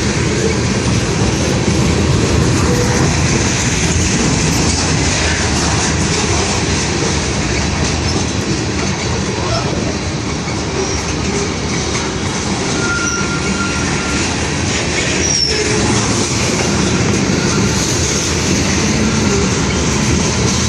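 Freight train cars rolling past close by: a loud, steady rumble of steel wheels on rail, with a couple of brief wheel squeals a little past the middle.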